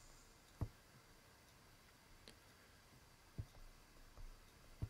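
Near silence broken by a few short, soft knocks of a pen stylus on a tablet during handwriting, about half a second in, a little past two seconds, about three and a half seconds in and just before the end.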